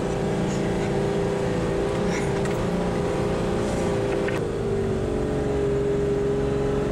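Toyota Land Cruiser Troop Carrier engine running steadily under load as it drives up a soft sand dune, heard from inside the cabin; its pitch drops slightly about four seconds in.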